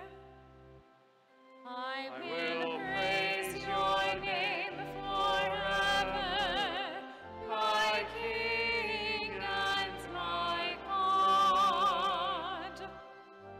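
Sung responsorial psalm: a singing voice with a wide vibrato over accompaniment with held low notes. The music drops away briefly about a second in, then picks up again.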